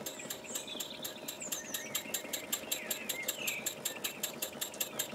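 Small wig-wag oscillating engine running the model lathe, its exhaust beats making a quick, even ticking of about six beats a second. A few faint high chirps are heard over it.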